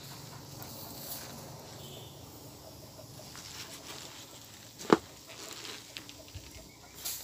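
Wood fire burning under a pot of steaming water, with light crackles and the rustle of leafy greens being handled in a bowl; one sharp crack about five seconds in.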